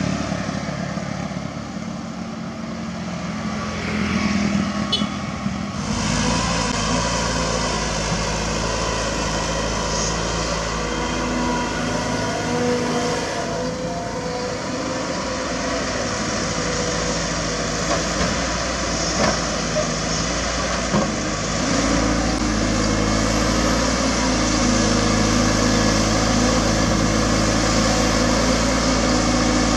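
Diesel engine and hydraulics of a large Cat 320D2 hydraulic excavator running steadily under load as it digs and loads dirt into a dump truck; the engine note steps up a little about two-thirds of the way in. The first few seconds are a smaller Cat excavator working beside road traffic.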